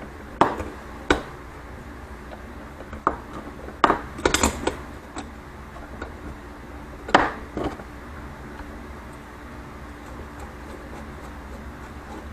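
Irregular metal clanks and knocks as a coil-over shock fitted with a spring compressor is handled and clamped into a bench vise. There are about seven sharp hits, bunched in three groups, with quiet room tone between them.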